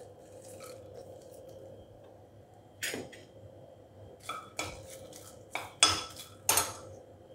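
Steel spoon clinking and scraping against a nonstick frying pan as fox nuts (makhana) are stirred while frying in a little ghee. The strokes are scattered, mostly in the second half, with the loudest near the end.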